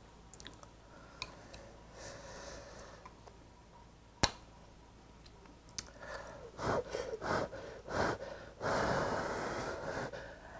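A person blowing on hot, steaming ramen noodles to cool them. There are several short puffs, then one longer blow in the second half. Earlier, faint chopstick clicks against a bowl are heard, with one sharper click about four seconds in.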